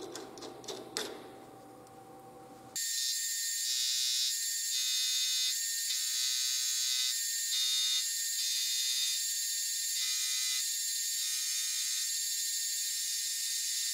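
A few clicks and knocks as an aluminium plate blank is set in a lathe chuck, then a metal lathe turning the aluminium: a steady high-pitched machining whine with a shrill tone that comes and goes about once a second.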